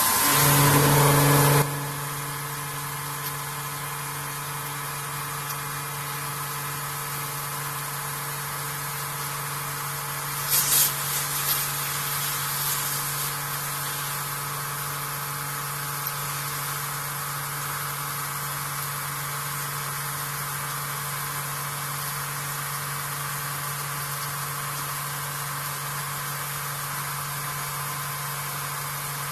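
Vertical machining centre face-milling aluminium: loud cutting noise for about the first second and a half, then a steady machine hum from the running spindle, with a short hiss about ten seconds in.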